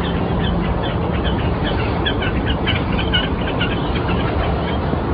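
Many short, repeated bird calls over a steady low background rumble.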